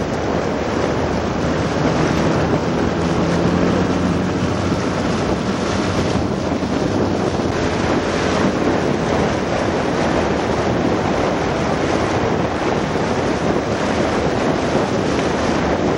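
Steady rush of wind on the microphone and water noise, with the low drone of a motor launch's engine underneath.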